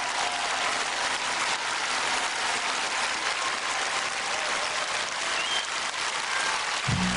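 A large arena audience applauding. Music starts up with a bass line just before the end.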